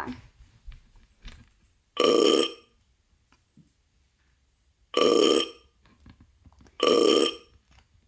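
A recorded burp sound effect played three times, the same short burp each time: the Raspberry Pi toy's burp.wav, triggered each time two wires on the toy touch and complete the circuit.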